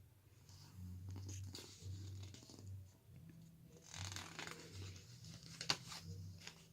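Faint rustling of glossy photobook pages being handled and turned, with a swish about four seconds in and a sharp tap just before six seconds.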